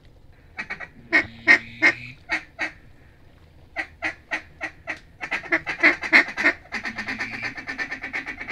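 Mallard duck call being blown to circling mallards: a run of loud, evenly spaced quacks, then a fast rolling chatter from about five seconds in.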